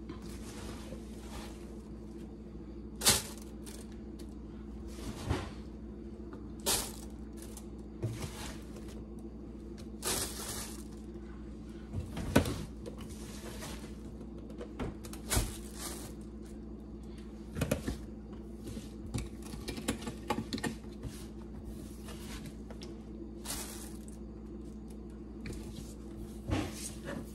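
Wet potato peels being scooped out of a stainless steel sink and dropped into a plastic grocery bag: short, irregular rustles and crinkles every second or two over a steady low hum.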